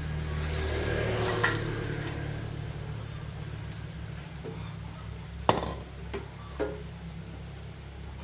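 Steady low electrical hum of a welding machine's transformer switched on, with a few sharp metallic clicks, the loudest about a second and a half in and about five and a half seconds in.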